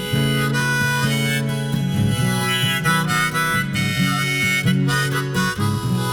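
Instrumental break in a song: a melody of held notes over a steady accompaniment, with no singing.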